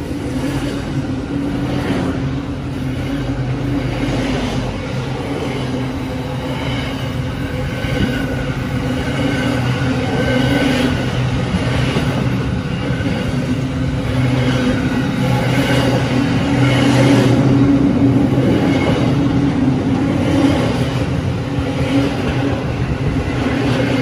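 Container freight train wagons rolling past at close range: a steady, loud rumble of steel wheels on the rails, with faint whining tones coming and going above it.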